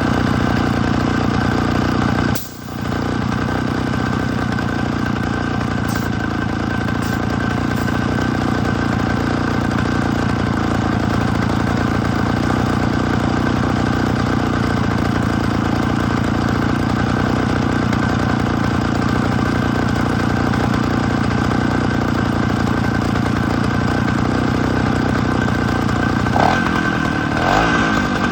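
The two-stroke engine of a 65 cc Husqvarna chainsaw running steadily on a homemade compressor, water pump and generator rig. The sound drops out sharply for a moment about two and a half seconds in, and the engine pitch shifts near the end.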